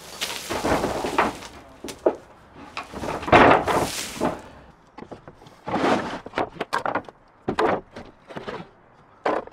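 Irregular knocks and thuds, with several bursts of scraping noise of about a second each, near the start, around three seconds in and around six seconds in.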